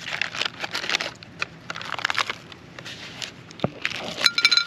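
MRE pouch crinkling as it is torn open and handled, then near the end a handful of wrapped peppermint hard candies spills onto a plate with a quick clatter of clinks.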